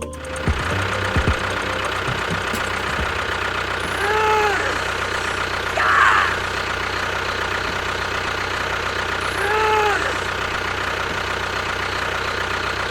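A small engine or motor running steadily. Two short tones rise and fall, about four and about ten seconds in, and a brief high squeal comes around six seconds in.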